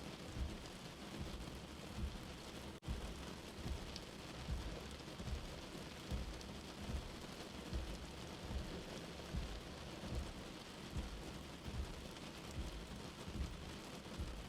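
Steady rain falling, with frequent low thuds of heavy drops striking a surface. The sound cuts out for an instant about three seconds in.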